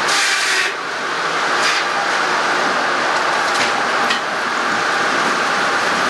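Sawmill machinery running with a loud, steady noise as a log is fed on a conveyor toward a large circular saw. A few short high hissing bursts break through: one right at the start and several more over the next four seconds.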